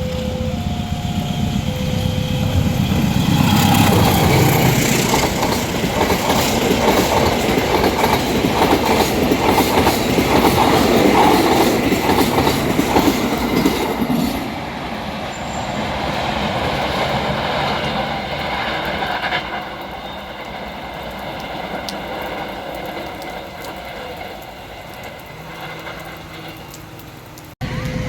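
Level-crossing warning chime alternating between two tones. From about three seconds in, a train passes over the crossing with its wheels clattering on the rails. The train is loudest for about ten seconds, then fades, and the sound breaks off abruptly near the end.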